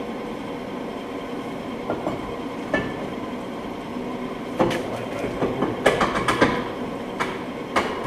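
Scattered metallic clicks and clanks, thickest in the second half, from the rear parking-brake adjustment being worked at the wheel, over a steady background hum.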